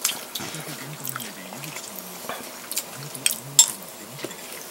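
A person eating with chopsticks: wet mouth sounds of eating, and a handful of sharp clicks of chopsticks against a dish.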